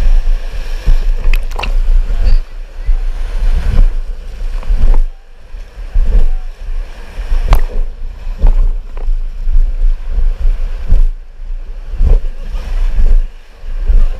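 Rushing river rapids on an inflatable raft, with wind buffeting the camera's microphone into a heavy rumble, and several sharp knocks and bumps scattered through it.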